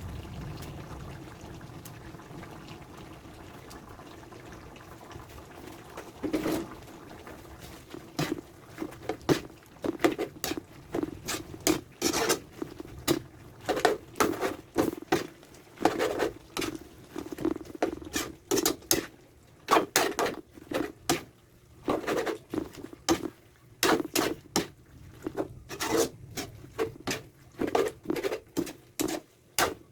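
Thick coconut-milk stew simmering in a pot, its bubbles popping irregularly with short low blips. The popping starts about six seconds in and grows more frequent as the sauce comes to the boil.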